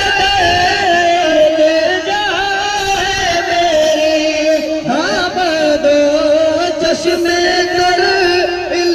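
Men singing an Urdu naat, a devotional song in praise of the Prophet, into handheld microphones: one lead voice holds long, wavering, ornamented notes, sweeping up into a new phrase about five seconds in.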